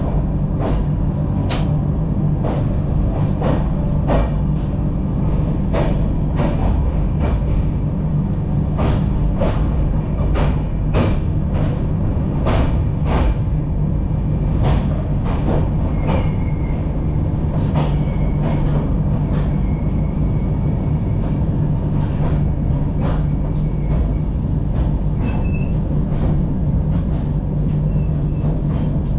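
Train wheels clattering over rail joints and points at uneven intervals as the coach moves off, heard from inside the coach over a steady low running hum. A faint wheel squeal comes and goes in the second half.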